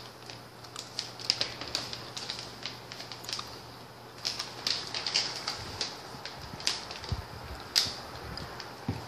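Plastic snack pouch crinkling and crackling as it is torn open and handled, in short irregular crackles.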